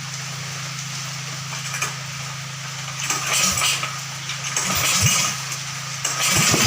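Sogo 13 hp single-cylinder petrol engine being pull-started, with several rattling recoil pulls. It catches near the end and settles into a fast, even running beat. A steady low hum sounds under the pulls.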